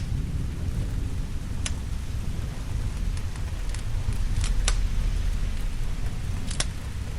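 Steady rain with a low rumble underneath, and a wood fire giving a few sharp crackling pops, about five in all, two close together in the middle.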